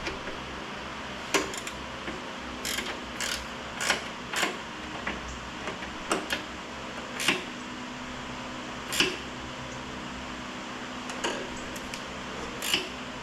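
Hand tools and metal bracket parts clicking and knocking while a motorcycle backrest mount is tightened, about a dozen short knocks at irregular spacing. A steady hum runs underneath.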